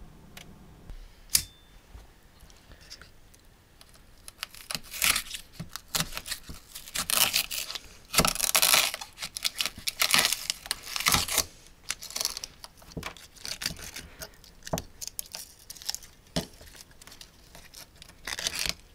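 A knife cutting and tearing into a small speaker driver's paper cone and dust cap: irregular bursts of scraping, ripping and crinkling with clicks. The first few seconds are quiet apart from one sharp click; the tearing starts about four seconds in.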